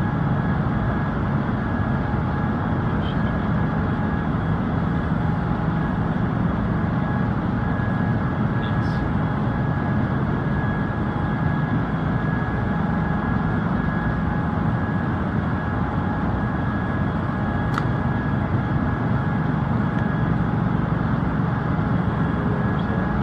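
Steady mechanical drone: a low rumble with a thin, constant whine above it. A few faint short ticks or chips break through now and then.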